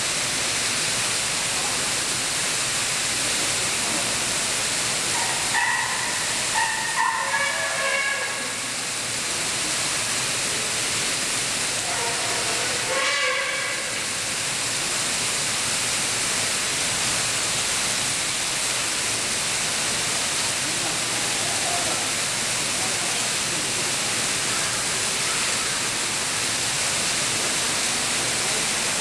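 Steady rushing of a small waterfall, with a few short high squeals from a young Asian elephant a few seconds in and another squeal about halfway through.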